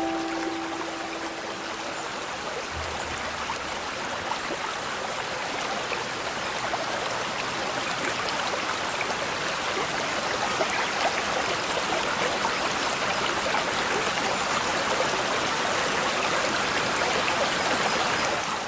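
Babbling brook: a steady trickling and splashing of shallow running water. A last piano chord dies away in the first second.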